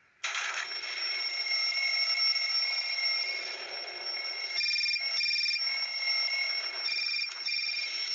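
Alarm clock going off, a loud shrill ringing that starts suddenly, breaking into pairs of short beeps about halfway through and again near the end.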